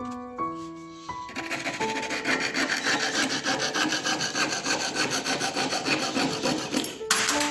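Rapid, even back-and-forth strokes of a hand tool rasping on a silver ring, starting about a second in and stopping near the end, over background music.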